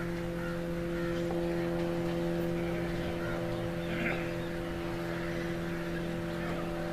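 A steady machine drone holding one unchanging pitch with several overtones, with faint murmuring and chirps above it.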